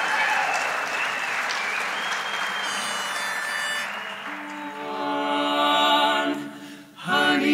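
Audience applause with some whistling, dying away over the first four seconds. A single held note then sounds, followed by a men's barbershop quartet holding a chord in close harmony, and a cappella singing starts near the end.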